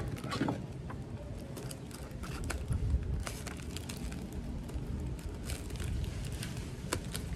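Scissors snipping and plastic wrap crinkling as the clear plastic around a potted plant is cut away: a scatter of short sharp clicks and rustles over a steady low rumble.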